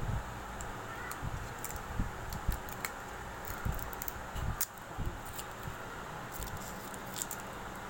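Paper and thin plastic film handled by hand at a work table: scattered light clicks, crinkles and soft taps over a steady background hiss.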